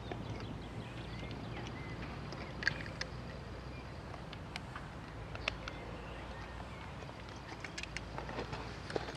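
Diesel engine of a Hyundai 170W-7A wheeled excavator running steadily at a distance, with scattered light clicks and knocks and a few faint bird chirps.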